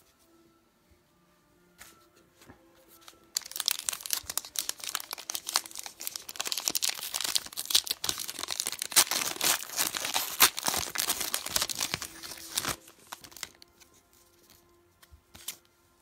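A trading-card pack's wrapper being torn open and crinkled by hand, a dense crackling that starts a few seconds in and dies away a few seconds before the end.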